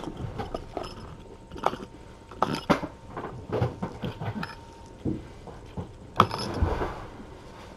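Irregular small clicks and knocks, with a longer gritty scraping rustle about six seconds in.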